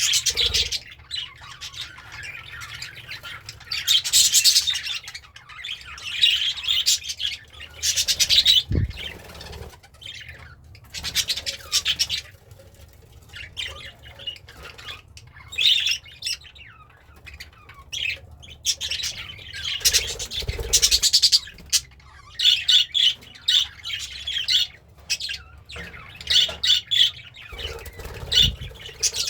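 Budgerigar chattering: bursts of fast, high chirps and scratchy warbling with short squawks, coming in spells every few seconds. A single low thump sounds about nine seconds in.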